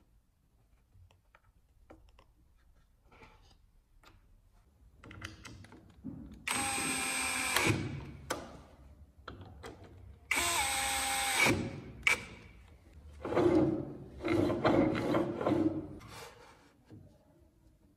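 Power drill running in short bursts: two whirring runs of about a second each, then a few seconds of rougher, uneven running. Faint handling ticks come before them.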